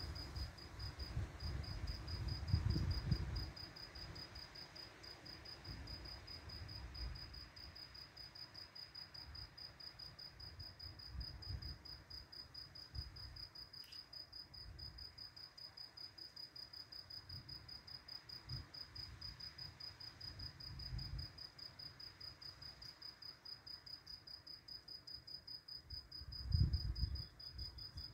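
A cricket chirping steadily in a fast, even pulse at a high pitch, with a second, fainter cricket joining near the end. Low rumbles rise at the start and again near the end.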